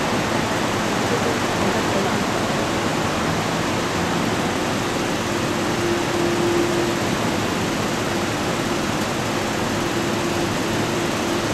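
Steady rushing noise with a faint low hum.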